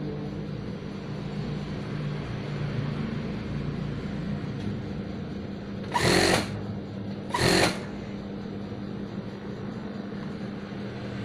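Industrial sewing machine with its motor humming steadily, then two short bursts of stitching through chiffon a little past the middle, each about half a second long.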